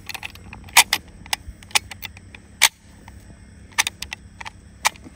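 Brass .303 cartridges clicking and scraping as they are thumbed down from a stripper clip into the magazine of a Lee-Enfield No. 4 Mk1 rifle. It comes as a series of irregular sharp metallic clicks, the loudest about a second in and again about halfway through.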